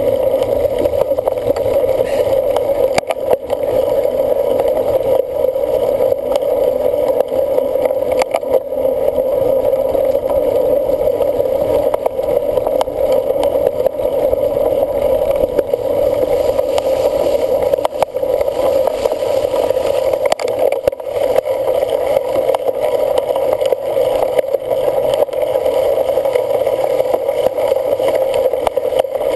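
Cyclocross bike being ridden: steady rolling and wind rumble with occasional short knocks from bumps in the ground.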